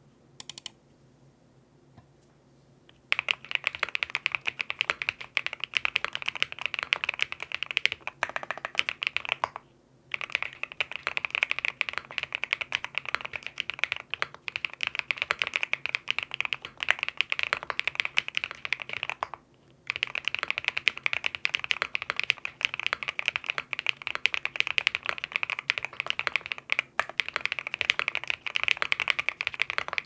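Fast, continuous typing on a Qwertykeys QK80 mechanical keyboard with lubed Bsun Raw linear switches, PBT keycaps, a polycarbonate plate and foam-filled case. A single click comes first; the rapid keystrokes start about three seconds in and stop briefly twice, about a third and two thirds of the way through.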